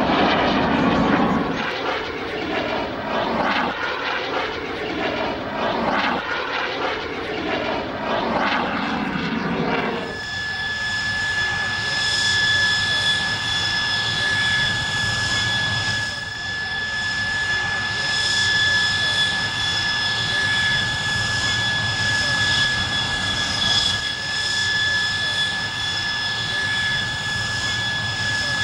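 Jet aircraft engine noise: a passing jet's roar that wavers and shifts in pitch, then about ten seconds in it cuts to jet engines on the runway with a steady high turbine whine over the roar.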